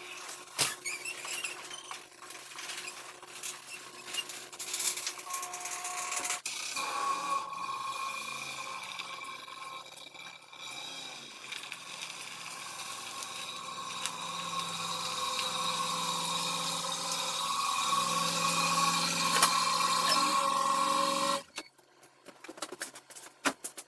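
An electric garage door opener runs as the roll-up door rises, then a 2008 Ford F-150 pickup's engine runs, growing louder as the truck pulls in, and cuts off suddenly about 21 seconds in; a few faint clicks follow.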